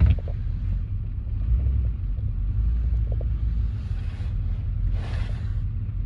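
Steady low rumble of engine and road noise inside the cabin of a 1977 Chevrolet Caprice as it is driven, with a short knock right at the start.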